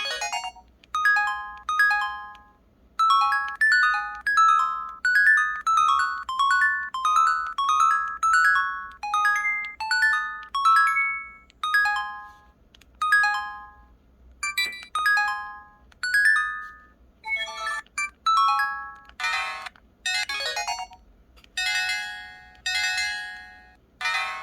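Pantech Sky IM-S480 mobile phone keypad tones in its harp voice: a short plucked note for each key press, changing pitch from key to key, about one or two a second. Near the end the tone set changes to the gayageum voice, brighter and fuller.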